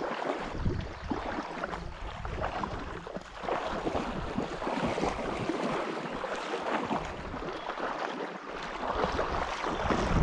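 Water splashing and sloshing around a canoe moving through a shallow, weedy creek, with dogs wading and swimming through the water alongside. The splashes come unevenly throughout.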